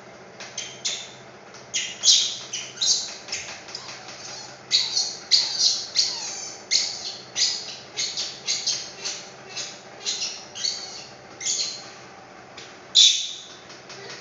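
Baby monkey crying: a run of short, high-pitched screams, about two a second, with the loudest one near the end.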